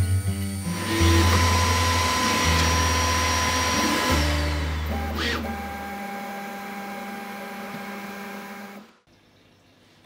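Background music with low held bass notes, under a steady rushing noise that swells in about a second in and fades away; near silence from about nine seconds in.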